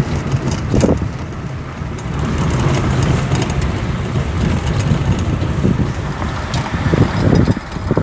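Steady low rumble of an engine and tyres on the road, heard from inside a moving vehicle.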